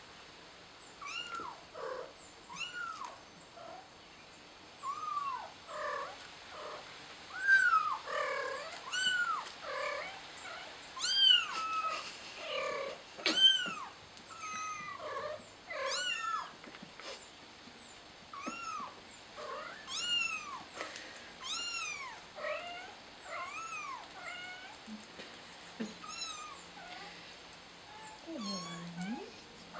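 A kitten mewing over and over, short rising-and-falling cries about one a second, a few of them louder than the rest. These are the calls of a kitten stuck on top of a flower pot.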